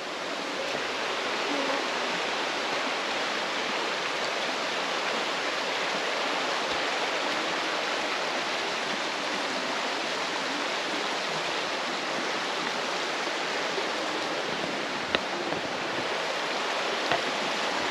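Steady rushing of a shallow, rocky river running over rapids, growing louder over the first couple of seconds and then holding steady. A couple of faint clicks near the end.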